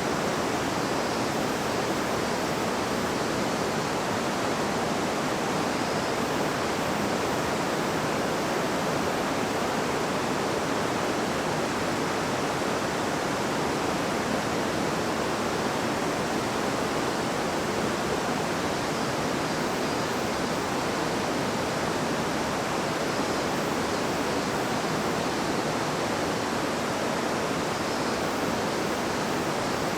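A river babbling and rushing steadily, an even wash of flowing water with no breaks.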